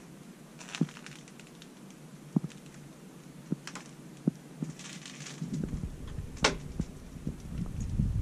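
Scattered sharp clicks and crackles. From about five and a half seconds in, a low rumble of wind on the microphone builds up.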